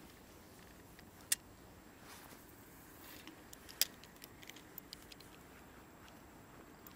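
Spinning rod and reel handled while working a jerkbait: two sharp clicks, the first about a second in and the second near four seconds, then a scatter of lighter ticks, over a faint steady hiss.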